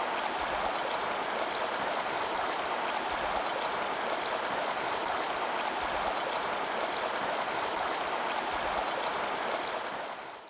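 Steady rush of bubbling water, fading out near the end.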